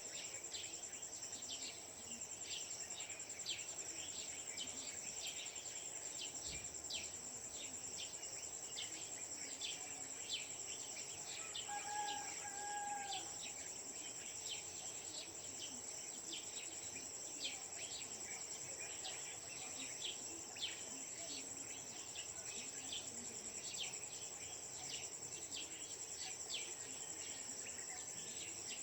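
Early-morning village ambience: a steady high insect drone, like crickets, with many quick bird chirps throughout. About twelve seconds in, a short two-part call that is probably a rooster crowing.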